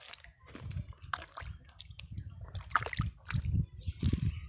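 Hands digging and squeezing through thick wet pond mud: irregular squelches and wet slaps, getting louder toward the end.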